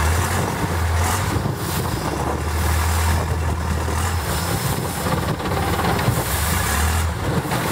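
Long-tail boat engine running with a low drone that swells and eases several times, under a steady rush of wind and water noise.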